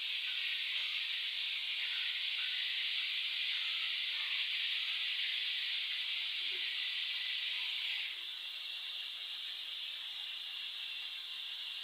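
Flour-coated chicken pieces deep-frying in hot oil in a kadhai, giving a steady sizzle that drops a little in level about eight seconds in.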